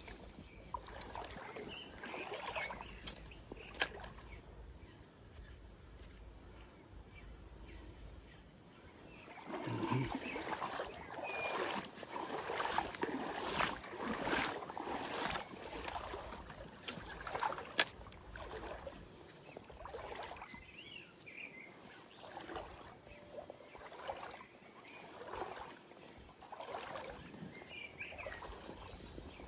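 River water splashing and sloshing in irregular swells, with two sharp clicks, one early and one about two-thirds of the way through.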